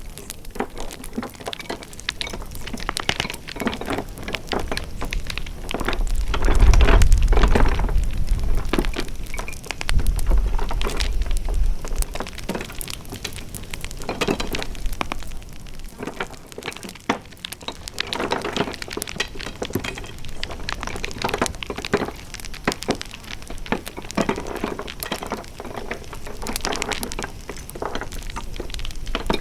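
Wood fire crackling with dense, irregular pops and snaps, and a low rumble swelling about six seconds in and again about ten seconds in.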